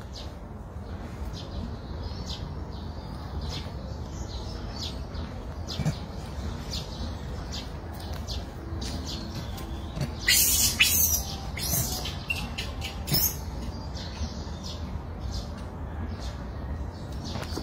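Short, high-pitched animal squeaks and chirps coming again and again, louder and more crowded about ten to thirteen seconds in, over a low steady rumble.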